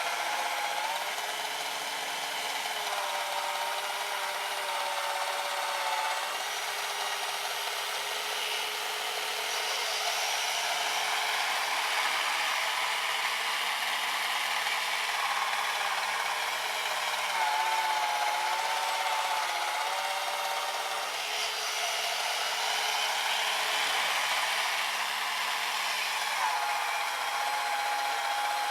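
Small brushed 550 electric motor of an RC snowblower whining as its auger churns through powder snow, over a steady rasping hiss. The whine wavers and shifts in pitch as the load changes, strongest around the middle and again near the end.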